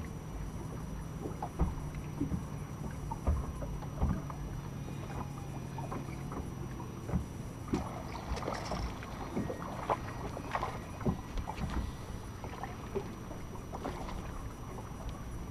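Small waves slapping and knocking against the hull of a bass boat, with scattered short knocks. A low steady hum fades out about halfway through.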